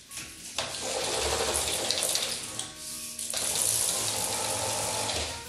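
Roller blind being pulled down, its fabric unrolling off the tube with a steady rushing noise in two long stretches, broken by a short dip about halfway.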